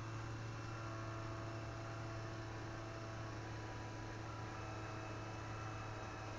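Litter-Robot automatic litter box's drive motor running steadily as the globe turns: an even low hum with a few faint, steady higher whine tones.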